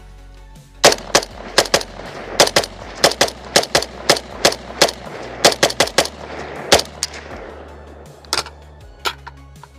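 Galil rifle fired in a fast, uneven string of shots for about six seconds, followed by two single shots spaced out near the end.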